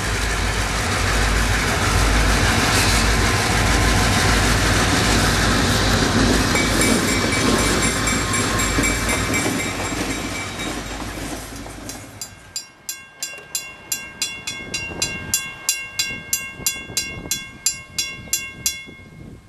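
Two EMD GP38-2 diesel locomotives passing close by, their engines and wheels on the rails loud and steady, fading after about ten seconds. About twelve seconds in, a railroad crossing bell starts ringing in rapid, evenly spaced strokes and stops just before the end.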